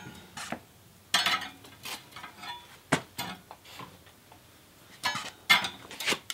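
A slow, uneven series of sharp knocks and light metallic clinks, about nine over six seconds, as a person walks in carrying a long object.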